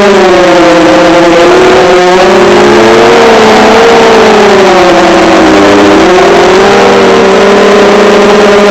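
FPV drone's electric motors and propellers whining loudly, their pitch sliding up and down as the throttle changes.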